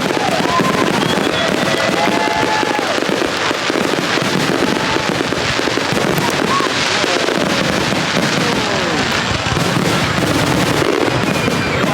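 Fourth of July fireworks display going off without pause: a dense, continuous crackling and popping of many shells at once.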